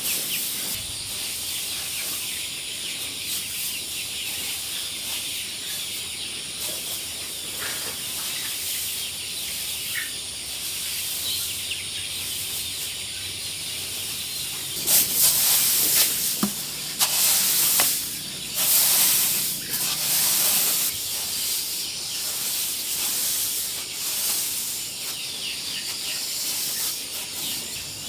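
Steady high-pitched hiss of outdoor background noise. About halfway through it is broken by several seconds of loud rushing noise in separate bursts.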